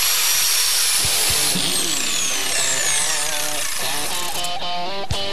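Angle grinder grinding a crack in a steel car chassis rail, opening it up so the weld will penetrate. About a second and a half in, the grinder is switched off and its whine falls away as it spins down. Background guitar music comes in after that.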